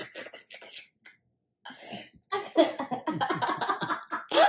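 A woman and a girl laughing hard. The laughter breaks out about two seconds in, after a short near-quiet pause.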